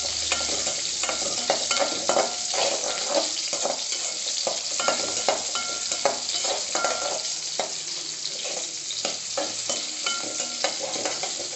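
Whole shallots sizzling as they fry in hot oil with mustard seeds and cumin in a metal kadai, while a slotted metal spatula stirs and scrapes them against the pan with frequent irregular clicks and knocks.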